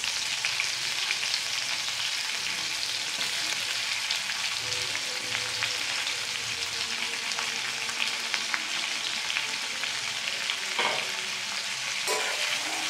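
Freshly added sliced onions sizzling in hot mustard oil in a steel kadai, a steady hiss, with light clinks and scrapes of a slotted steel spatula stirring them against the pan.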